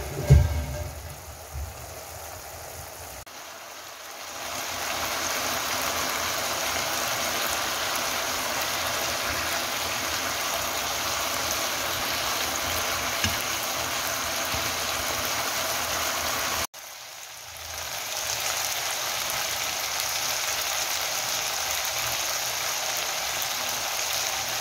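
Pork, kimchi and onion frying in a pan as a sauce is stirred in: a thump at the start, then a steady sizzle that builds a few seconds in, cuts out abruptly about two-thirds of the way through and comes back.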